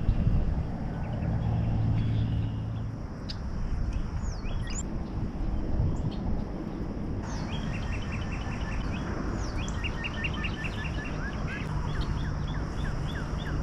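Songbirds chirping around the pond, with a quick series of repeated chirp notes in the second half, over low wind rumble on the microphone.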